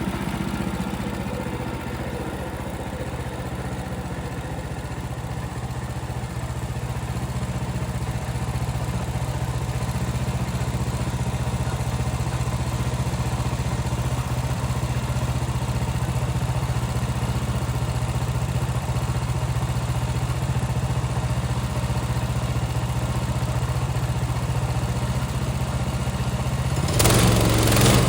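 Portable band sawmill's small gas engine running steadily while its band blade cuts through a pine log. About a second before the end the sound briefly turns louder and harsher.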